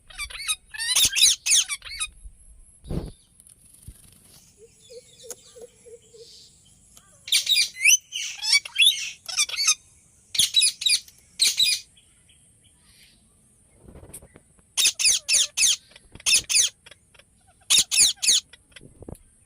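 Indian ringneck parakeet calling in loud, high-pitched bursts of rapid repeated notes, about five bursts with pauses between them. A single low thump comes about three seconds in.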